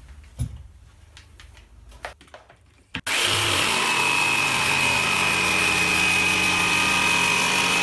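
A corded jigsaw starts about three seconds in and runs steadily with a high whine as it cuts through birch plywood, roughing out a curved cut-out in a panel. Before it starts there are a few light knocks as the saw is handled.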